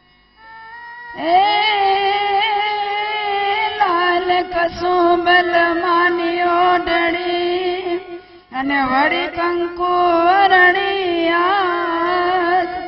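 A woman singing an amplified devotional folk song in long held notes. She starts about a second in, breaks off briefly around eight seconds, then carries on in more ornamented, wavering phrases.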